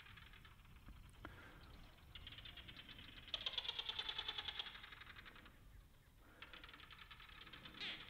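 A chorus of barking geckos calling from their burrows: rapid trains of dry tok-tok clicks from many animals calling and answering one another, with a louder stretch of dense clicking a little before the middle and a brief lull after it. It is a field recording played over a hall's speakers.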